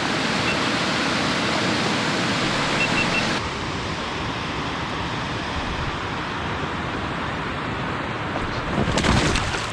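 Steady rushing water from a river dam, an even roar with no distinct events. The character changes abruptly a few seconds in, and there is a short knock or scrape near the end.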